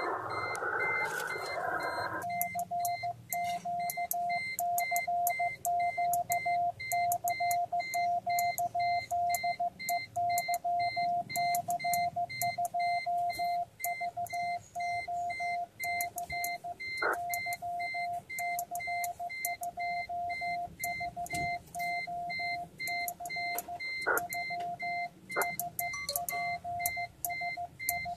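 Morse code sent on a paddle key and heard as the Yaesu FT-450 transceiver's CW sidetone: one steady beep keyed on and off in short and long pieces. The first two seconds are receiver hiss before the keying starts.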